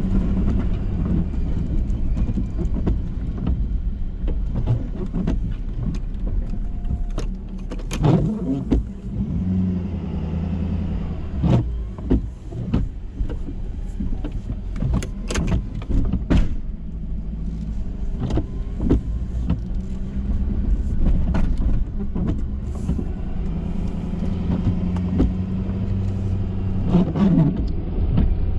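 Pickup truck engine running steadily, with a hum that comes and goes and a scattering of sharp knocks and clunks.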